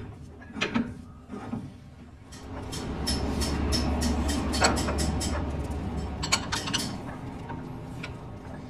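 Metal parts knocking and clattering in a metalworking workshop, a few separate knocks at first, then a dense run of clatter over a low machine hum that swells in the middle and fades near the end.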